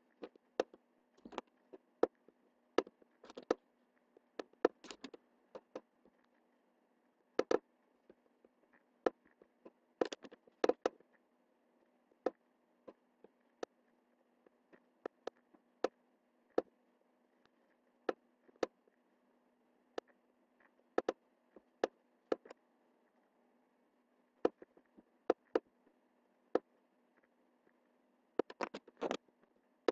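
Computer mouse buttons clicking irregularly, mostly single clicks a second or so apart, with a quick flurry of clicks near the end, over a faint steady hum.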